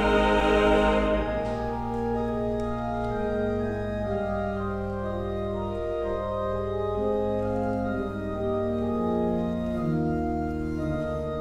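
Church organ playing slow, sustained chords that change every second or two. At the start the last of a choir's singing fades out, about a second in.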